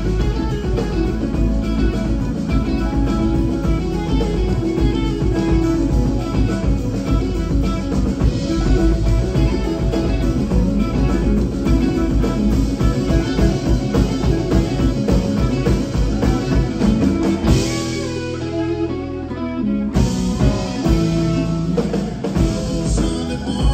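Live rock band playing an instrumental passage led by electric guitar, over keyboard, bass, drum kit and congas. The drums drop out for a couple of seconds near the end, then the full band comes back in.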